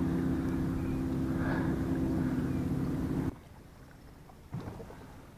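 Steady drone of a boat motor that cuts off abruptly a little over three seconds in, leaving quiet with a soft knock about a second later.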